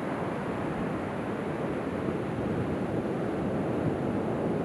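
Ocean surf breaking and washing up a sandy beach, a steady rushing noise with no single wave standing out.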